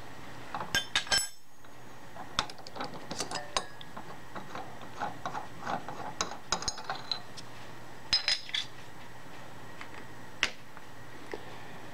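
Hard metal tooling clinking and tapping by hand as the countersink is taken out of the machine spindle and the drill chuck is put back in: scattered sharp clinks, a quick cluster about a second in and again about eight seconds in, with a last single clink near the end.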